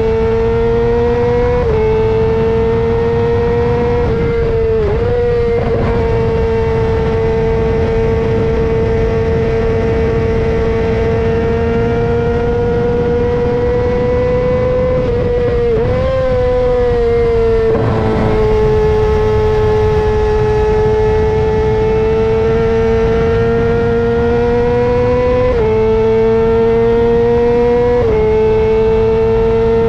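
Yamaha R6's 600cc inline-four engine through a LeoVince full exhaust system, running at high revs under way. The note holds steady for long stretches, with a few brief drops in pitch at gear changes.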